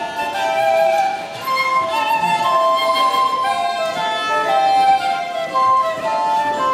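Small folk band playing a tune together: the melody carried on transverse flute and fiddle, with an upright woodwind playing alongside.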